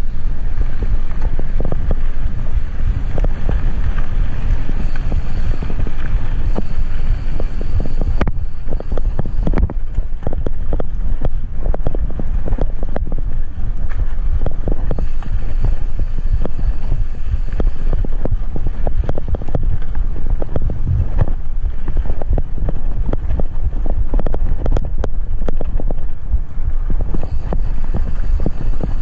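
Wind buffeting an action camera's microphone on a moving mountain bike, with the tyres running on a dirt road and frequent short knocks and rattles from the bike over the bumps.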